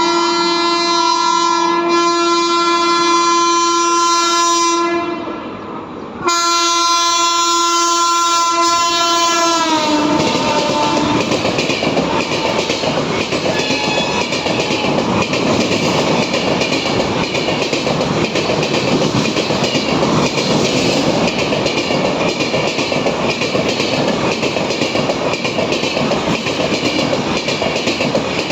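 WAP7 electric locomotive's air horn sounding continuously as the train runs through without stopping. The horn fades briefly about five seconds in, comes back, then drops in pitch as the locomotive passes about ten seconds in. After that the LHB coaches go by with a steady rumble and wheel clatter on the rails.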